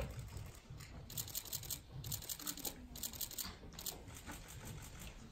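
Faint, rapid rustling and crackling over a low room rumble, starting about a second in.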